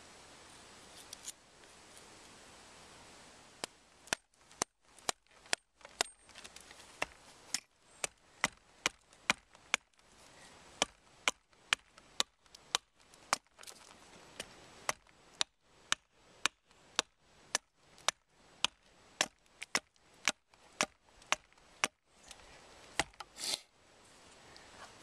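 Elbow adze chopping into wood, sharp strikes at about two a second in a steady rhythm, starting a few seconds in and stopping near the end.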